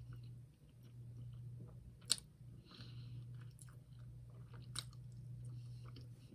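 A person chewing a bite of an English muffin sandwich with fried egg and cheese: soft, wet mouth clicks and smacks, with two sharper clicks, one about two seconds in and another a little under five seconds in. A steady low hum runs underneath.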